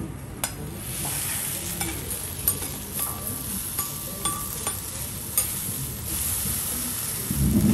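Beef steak sizzling on a hot steel teppanyaki griddle, with sharp clicks as a metal spatula and knife tap and turn it on the plate. A louder low thump comes at the very end.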